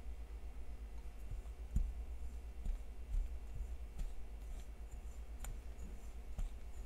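Light clicks and taps at an irregular pace, a dozen or so, over a steady low hum.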